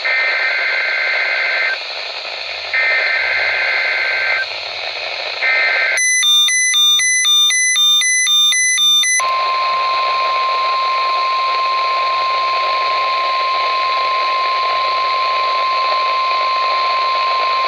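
NOAA Weather Radio Required Weekly Test alert through a radio receiver with steady hiss: two bursts of SAME digital header data screeching on two alternating pitches, and a third cut short. Then about three seconds of rapid electronic beeping in several pitches, then a steady single-pitch warning alarm tone for about nine seconds.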